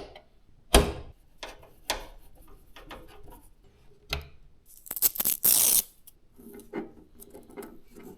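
Hardware being handled while a gaming PC is assembled: scattered clicks and knocks, the loudest a thump just under a second in, and a brief loud scraping hiss about five seconds in.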